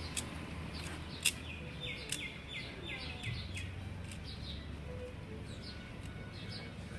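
Plastic Rubik's cube being twisted during a speed solve, with a few sharp clicks from the turning layers. A bird chirps a quick run of about six falling notes in the background early in the solve.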